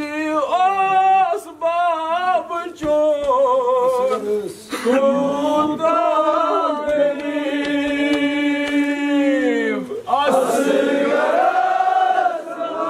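A man's voice chanting a Muharram lament (nauha) unaccompanied, in wavering sung phrases, holding one long note for about five seconds in the middle before starting a new phrase.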